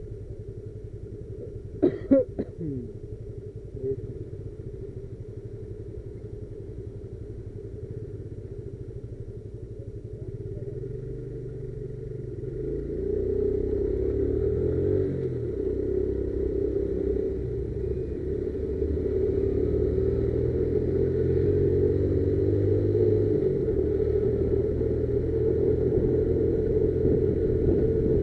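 Motorcycle engine running on the move. About two seconds in there is a brief sharp sound. From about twelve seconds in the engine gets louder and its pitch rises and falls as it speeds up and changes gear.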